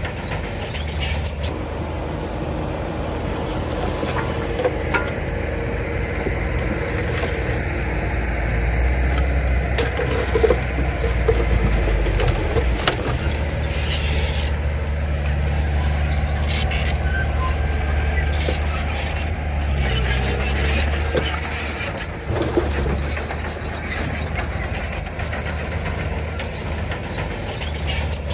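Komatsu D31 crawler bulldozer working, its diesel engine running steadily under load and growing louder for the middle stretch, with short high-pitched squeals now and then from the machine.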